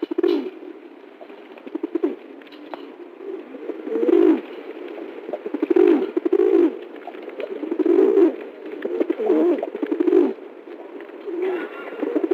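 Pigeon cooing: a run of low coos repeated about every one to two seconds.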